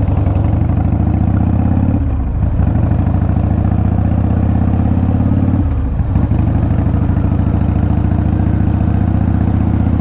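Harley-Davidson V-twin motorcycle engine running under way, its note climbing and then dropping back twice, about two seconds and about five and a half seconds in. It runs with the choke pulled most of the way out.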